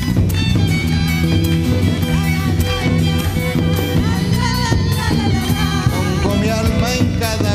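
Live band playing an upbeat dance tune with a steady beat and bass; a wavering melody line comes in about halfway through.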